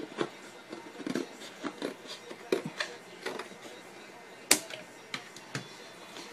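Stiff cardboard packaging backing being handled and worked close by: irregular scrapes and crackles about every half second, with one sharp crack about four and a half seconds in.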